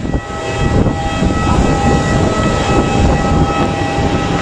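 Jet aircraft turbine noise on an airport apron: a steady whine of several held tones over a rumble.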